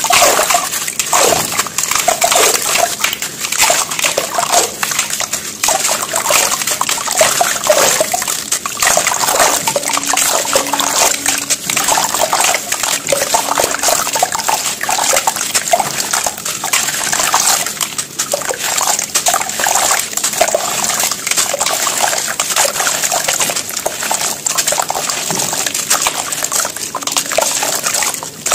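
Cement-and-sand chunks crunching and crumbling in the hands, the crumbs dropping and splashing into water in a basin, in a dense, irregular run of crackles.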